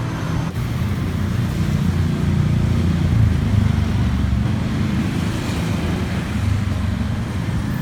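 Steady low rumble of passing road traffic, without clear voices.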